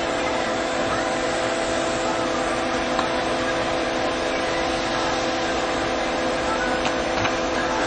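Steady machine hum with a few held tones over a constant hiss, unchanging throughout.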